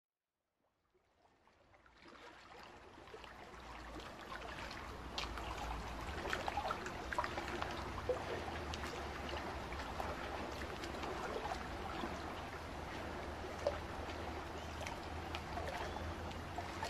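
Water ambience fading in over the first few seconds, then a steady wash of moving water with a low rumble and many small crackles and gurgles.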